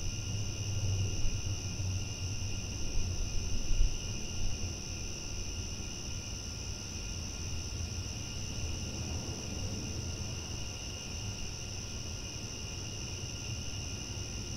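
Crickets chirping at night in a steady, unbroken chorus, with a low rumble underneath that is strongest in the first four seconds or so.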